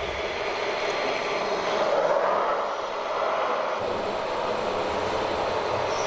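Radio-controlled model construction machines working, giving a continuous engine-like drone that swells about two seconds in.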